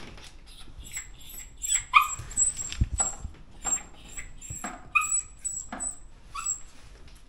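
Border Terrier giving a string of short, high yips and whimpers, about eight of them, starting about two seconds in.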